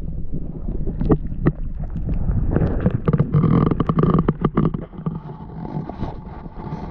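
Muffled sloshing and gurgling of water around an action camera held underwater in a muddy pond, with many sharp crackles from its wet microphone. About four or five seconds in the camera comes out of the water and the sound eases, though the microphone, still full of water, keeps crackling.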